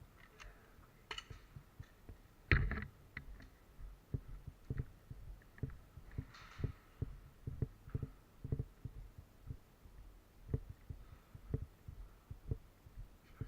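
Footsteps: dull thuds at a steady walking pace of about two a second, with one louder, sharper knock about two and a half seconds in.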